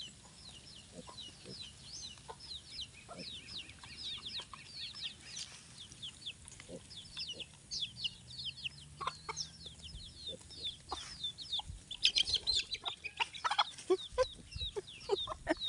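Chicks peeping in a rapid, continuous stream of short high chirps, with a hen clucking. The peeping gets louder and busier about twelve seconds in.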